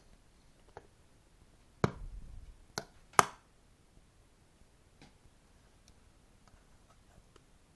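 A few sharp clicks and knocks: a loud one about two seconds in with a short low rumble after it, then two more about a second later, the last the loudest, with faint ticks around them.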